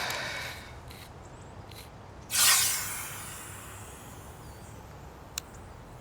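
A loud hiss about two seconds in that fades away over about a second, after a fainter fading hiss at the start, and a single sharp click near the end.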